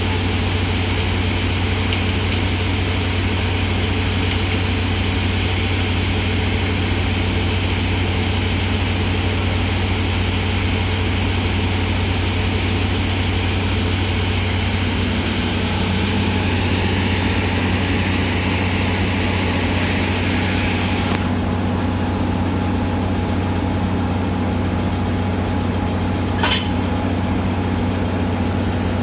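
Diesel-hydraulic locomotive (JNR Class DE10) idling with a steady low hum. A hiss over it cuts off suddenly about two-thirds of the way through, and a brief sharp sound comes near the end.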